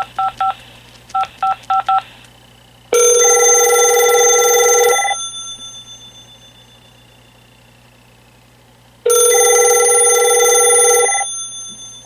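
Vtech 6773 cordless handset on speakerphone dialing seven quick touch-tones (555-5555, three then four). A telephone then rings twice, each ring about two seconds long and fading away, the second about six seconds after the first.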